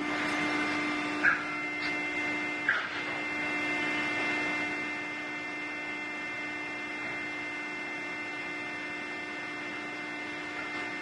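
Hydraulic drive of a four-roll plate bending machine running with a steady hum as the rolls turn a steel plate, with two short sharp sounds in the first three seconds.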